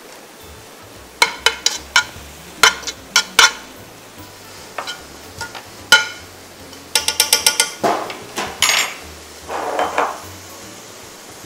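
Kitchen utensils knocking and clinking against a frying pan and dishes: a series of sharp separate clicks, a quick run of clicks about seven seconds in, and a short scraping stir near the end.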